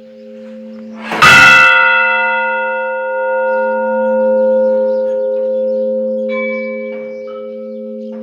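Church bells ringing: a large bell is struck about a second in, the loudest stroke, and rings on with a long, slowly fading hum over the tones still sounding from earlier strokes. Smaller, higher bells strike twice near the end.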